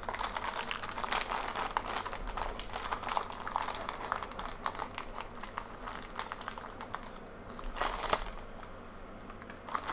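Foil HeroClix booster pack crinkling and crackling in the hands as it is pulled and torn open, with a louder burst of crinkling about eight seconds in.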